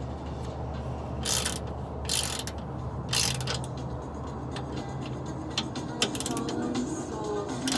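Hand socket ratchet clicking in three short runs about a second apart, then scattered single clicks near the end, as a rear shock absorber's mounting bolt is tightened.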